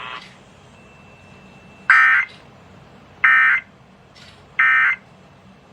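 Emergency Alert System end-of-message signal on broadcast radio: three short, loud bursts of buzzy digital data tones about a second and a third apart, marking the end of the warning. A faint hiss lies underneath.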